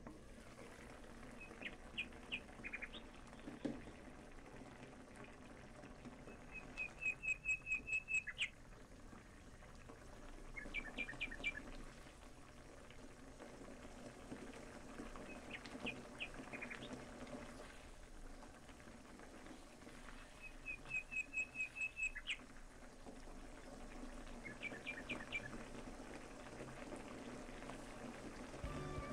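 A small bird chirping in short runs of quick, evenly spaced high notes, several times over, the two longest runs of seven or eight notes, over a faint steady background.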